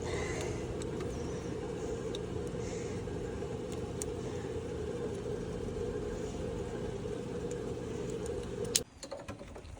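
Hot tub pump motor running with a steady low hum while the spa's jets and heaters are on. It stops abruptly with a sharp click near the end.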